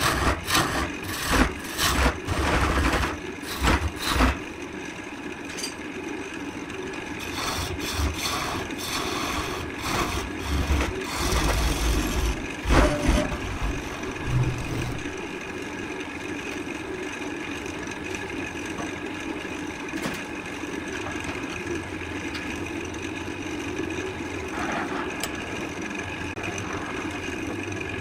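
Wood lathe motor running steadily while a hand-held turning tool scrapes and cuts the spinning wood in repeated short bursts through roughly the first thirteen seconds. After that the lathe hums on with little cutting.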